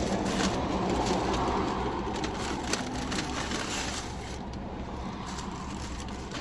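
Food wrapper and bag rustling and crinkling as they are handled, over the steady low hum of a car interior. The rustling is busiest in the first few seconds and thins out near the end.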